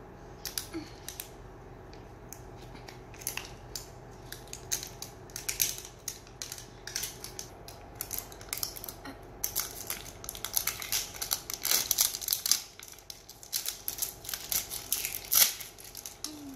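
Plastic wrapping on a toy surprise ball crinkling and crackling as it is peeled and torn off by hand, in quick irregular crackles that get denser and louder in the second half.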